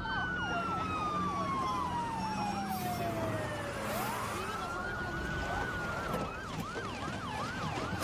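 Two emergency-vehicle sirens sounding together. One is on a fast yelp, sweeping up and down about three times a second. The other wails, falling slowly for about four seconds and then rising again.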